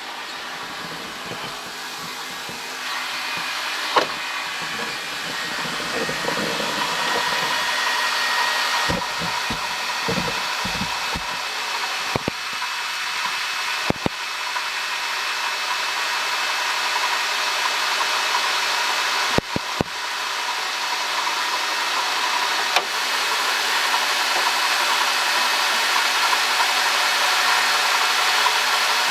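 2005 Honda Odyssey engine running steadily just after start-up, with a constant high-pitched whir over the engine noise: the abnormal noise of a failing water pump. It grows gradually louder, with a few sharp clicks along the way.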